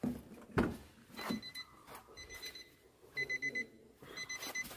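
Car door-open warning chime of a 2014 Nissan Almera: short, high electronic beeps roughly once a second, with a quicker run of several about three seconds in. A thud of the door being handled comes about half a second in.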